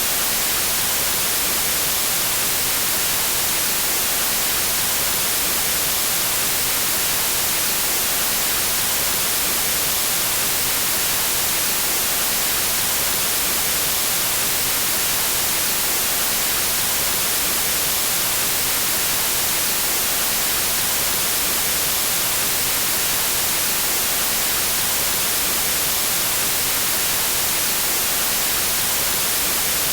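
White noise: a steady, even hiss across all pitches, strongest in the highs, with no change throughout.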